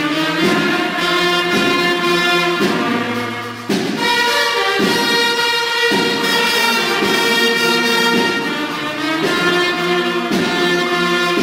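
Brass instruments playing held chords together, the notes changing roughly once a second, with a short break and a fresh, bright chord just under four seconds in.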